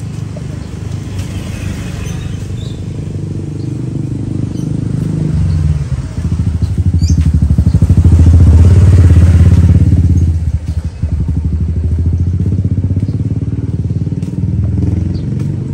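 Motorcycle engine running close by, rising to its loudest about eight to ten seconds in, dipping suddenly just after, then running on more quietly.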